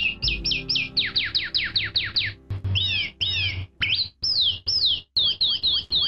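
Black-backed grosbeak (rei-do-bosque) singing: a quick run of clear whistled notes, each sliding downward, with a few sudden breaks in the song.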